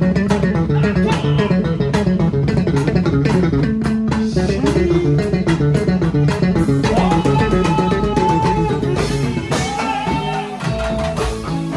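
A live band playing an instrumental passage: a bass line and plucked strings over steady percussion. From about seven seconds in, longer held melody notes come in on top.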